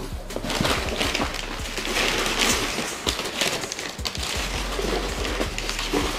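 Brown kraft packing paper rustling and crinkling as it is pulled and crumpled out of a cardboard box, an irregular run of crackles.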